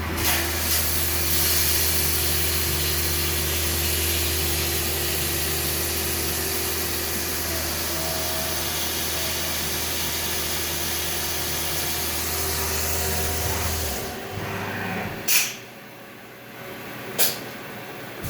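Haas 5-axis CNC mill running, a steady hiss over a low hum, which cut off about 14 seconds in. Two sharp clicks follow about a second and a half to three seconds later.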